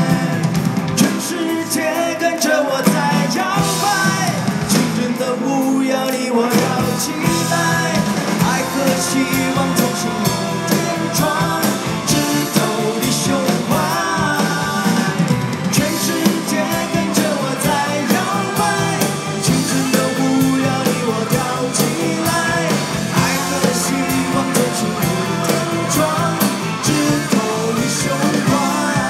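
Live band playing an upbeat Mandarin pop song, with singing over a steady drumbeat.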